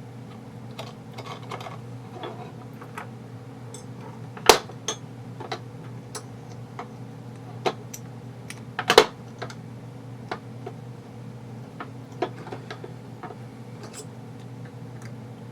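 Small parts of an airsoft gearbox handled on a bench: scattered light clicks and taps, with two louder sharp clacks about four and a half and nine seconds in, over a steady low hum.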